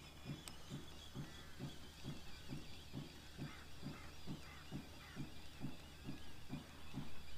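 Fixed-spool reel on a feeder rod being wound in steadily, a soft rhythmic churn repeating about two and a half times a second.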